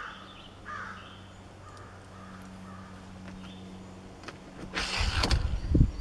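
Crows cawing a few short times, then a loud low rumble near the end.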